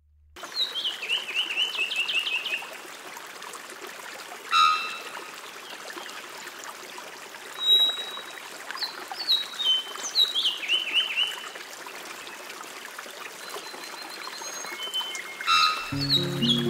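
Birdsong, a quick trill of chirps falling in steps, repeated several times over a steady trickling-water hiss. Music comes in near the end.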